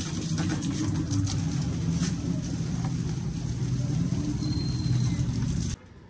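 Water spraying from a garden hose held with a thumb over its end, a steady rush of water that cuts off suddenly near the end as the tap is turned off.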